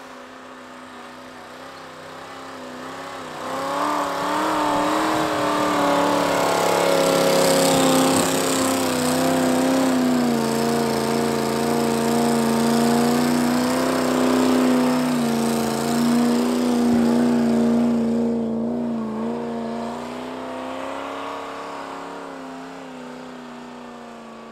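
Toyota 1UZ-FE 4.0-litre V8 in a 1989 Toyota Pickup, revving under load as the truck plows through deep snow. It grows louder from about four seconds in as the truck comes close, then fades as it pulls away.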